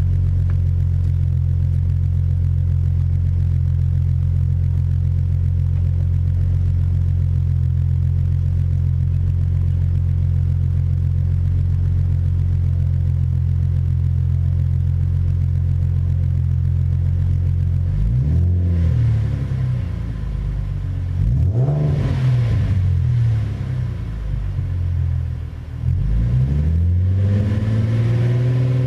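2016 Ford Mustang's 3.7-litre V6 through a newly fitted SVE straight-through stainless axle-back exhaust, idling with a steady low rumble, then revved several times in the last ten seconds, the pitch climbing and falling back each time.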